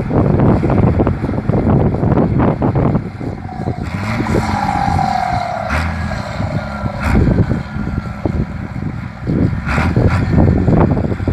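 A loud engine rumbling hard, roaring loud. It eases off for a few seconds in the middle, with a faint falling whine, then picks up again near the end.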